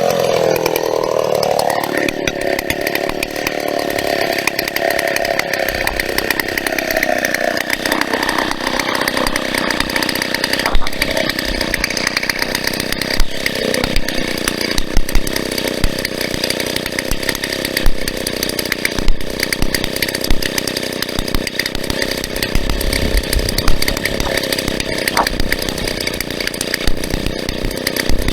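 Large vintage Stihl two-stroke chainsaw sawing through a birch stem. Its revs dip and climb again in the first couple of seconds, then it runs steadily under load, with sharp loud knocks scattered through the cut from about ten seconds in.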